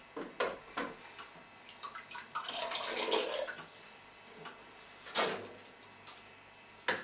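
Water being ladled from a wooden sauna bucket and splashing, with the longest pour about two and a half seconds in, another short splash later, and a few light knocks at the start.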